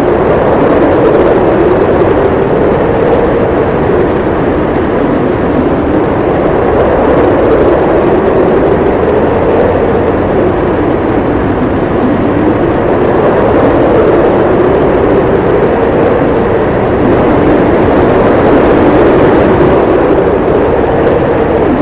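Blizzard wind howling steadily, its pitch slowly rising and falling, with a strong low rumble beneath and gentle swells in loudness.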